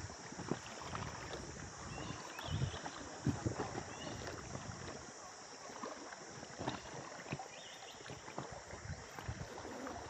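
Quiet river ambience aboard a rafting boat: a steady faint hiss of moving water, with scattered soft splashes and knocks.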